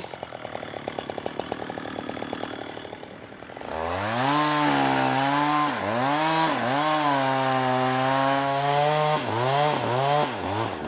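Chainsaw felling a tree. For the first few seconds it runs at low revs with a fast, even chatter. At about four seconds it opens up to full throttle in the cut, and its pitch dips several times as the chain bogs down in the wood.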